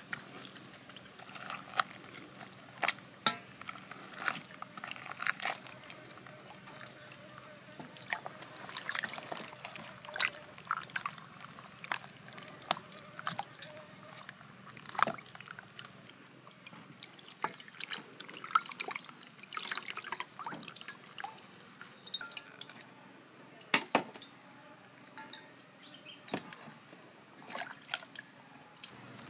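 Hands washing a whole raw chicken in a steel bowl of water: irregular splashing and dripping.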